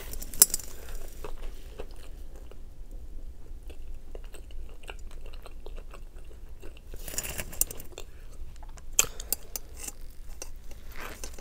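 Close-miked eating sounds: a short rustle of the burger being handled about seven seconds in, then a bite into a Burger King Nightmare burger near the end, with a few crisp crunches.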